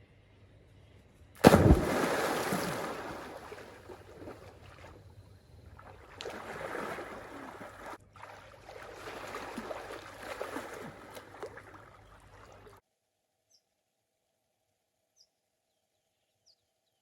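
Water splashing and rushing in three surges. The first starts suddenly and is the loudest, then fades; the sound cuts off abruptly near the end.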